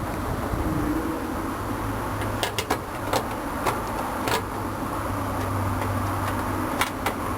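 Sharp metallic clicks and taps from tools and parts being handled during a microwave oven teardown, about seven in all, over a steady low hum that swells in two stretches.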